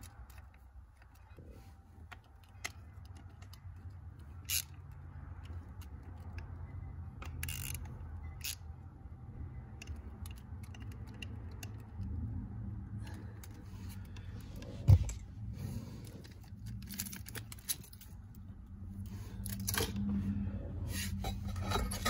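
Hand ratchet clicking and plastic parts of a car's ignition lock housing clicking and scraping as it is screwed together and fitted to the steering column. Sparse clicks at first, then denser handling noise in the second half, with one loud knock about fifteen seconds in.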